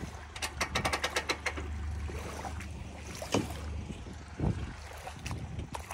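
A vehicle engine idling as a low steady hum, with a quick run of small clicks about half a second in and a few single knocks later on.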